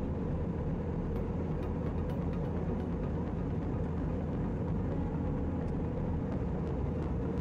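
Steady, low cabin rumble of an Airbus A321 in cruise flight, heard from inside the passenger cabin.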